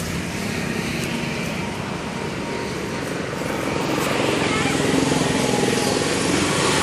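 A steady engine drone, getting louder about four seconds in.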